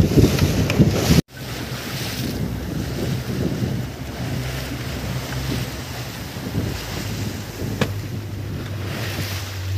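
A fishing boat's engine runs at speed under wind buffeting the microphone and water rushing along the hull. About a second in, it cuts to a quieter, steady low engine hum with water lapping against the hull.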